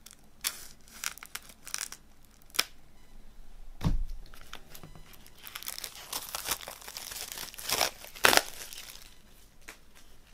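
A knife blade slitting the plastic shrink-wrap on a CD digipak in a few short, sharp rasps, then the film being torn and peeled away with dense crinkling and a loud crackle near the end. A dull thump about four seconds in.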